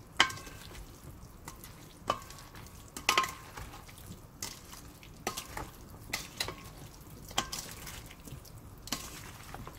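Diced potato salad being folded with mayonnaise in a stainless steel bowl using wooden utensils: soft, wet stirring with irregular knocks of the wood against the metal bowl, some with a brief ring.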